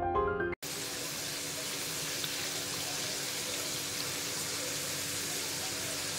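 Russet potato slices deep-frying in hot oil in a wok: a steady, even sizzle. It starts about half a second in, after piano music cuts off abruptly.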